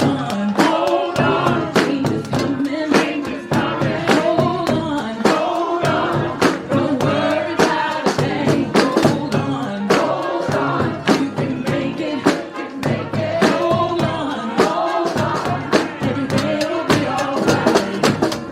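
Street brass band playing an upbeat gospel tune, horns carrying the melody over a steady drum beat of about three hits a second.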